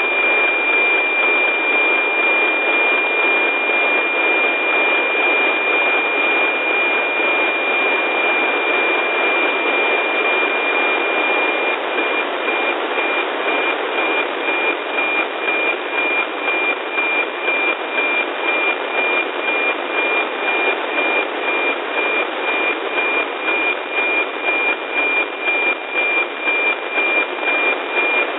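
NOAA 15 weather satellite's APT image signal, received on an RTL-SDR and played as FM-demodulated audio: a steady high tone over loud hiss. From about halfway through, the tone pulses in an even beat about twice a second, the tick-tock of the image lines being sent.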